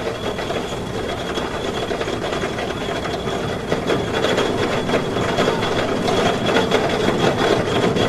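Roller coaster train rattling along its track, a fast, dense mechanical clatter that grows louder toward the end.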